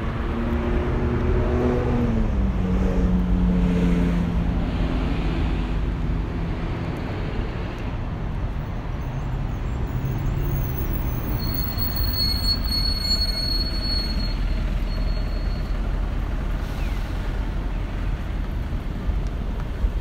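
Road traffic on a busy city street: a steady low rumble of engines and tyres, with a heavy vehicle's engine passing close in the first few seconds, its pitch falling as it goes by. A thin high squeal sounds for a few seconds near the middle.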